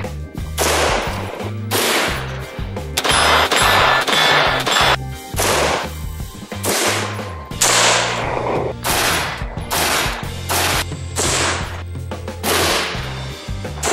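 Daniel Defense DDM4 V7 AR-15 rifle fired semi-automatically, about one shot a second, over background music with a steady bass line.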